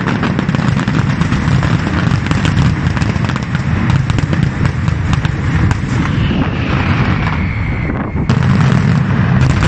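Castillo fireworks display: a dense, continuous barrage of booming shells and crackling bursts, with a faint whistle sliding down in pitch about six seconds in.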